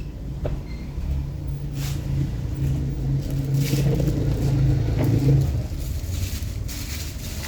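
A motor vehicle's engine running, a low steady hum that swells over a few seconds and then fades, with a couple of faint clicks near the start.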